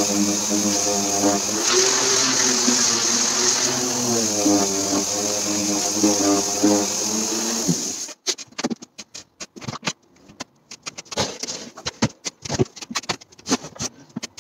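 Electric power sander running against wooden cabinet panels, its motor pitch wavering as the pressure on it changes. It stops abruptly about eight seconds in, followed by scattered knocks and clatter as the wooden cabinet is handled.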